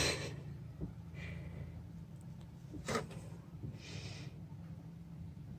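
Two short breaths close to the microphone, about a second in and about four seconds in, with a couple of soft knocks, over a faint steady low hum.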